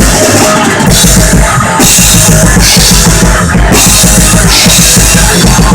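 Instrumental rock played by a band with no vocals or bass: a drum kit with heavy cymbal crashes and kick drum under loud distorted electric guitar.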